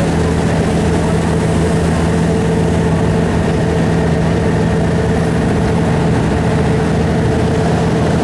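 A large engine running steadily at constant speed, a continuous even hum with no change in pitch or level.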